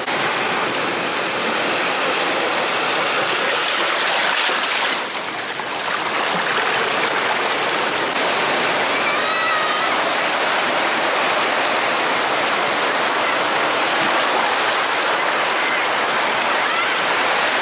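Seawater rushing over and between rocks on a rocky shoreline, a steady close rush of water with a brief dip about five seconds in.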